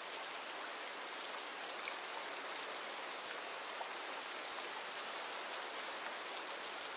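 Steady rain falling in a forest: an even hiss of rain with scattered faint drop ticks.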